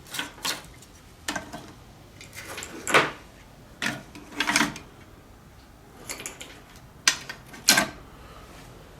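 Small copper-wound electric motors salvaged from computers being handled and set down, giving irregular knocks and clatters, about ten in all.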